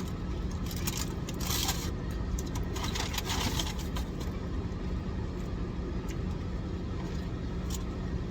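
Paper takeout bag and food containers rustling and crinkling as they are handled, loudest about one and a half and three seconds in, over a steady low hum.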